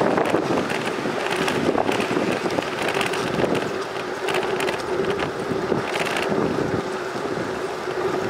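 Wind buffeting the microphone of a moving bicycle, with the rush of its tyres on a paved path and a steady hum underneath.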